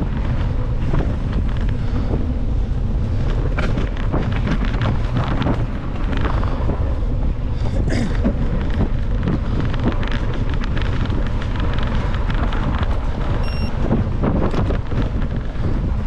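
Wind noise buffeting the microphone of a camera carried on a moving mountain bike, steady and low, with frequent clicks and rattles from the bike jolting over a dirt singletrack.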